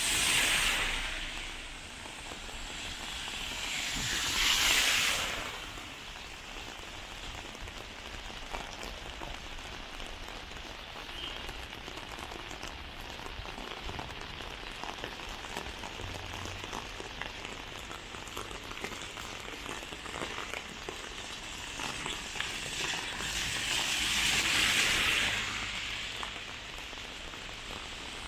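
Heavy rain falling steadily, with drops ticking on an umbrella overhead. Three times a car goes by on the wet road with a swelling hiss of tyres: at the start, about five seconds in, and near the end.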